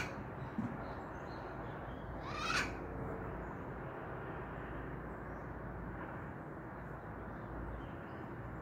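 A parrot gives one harsh, rising squawk about two and a half seconds in, over a steady background hiss, with a few faint high chirps.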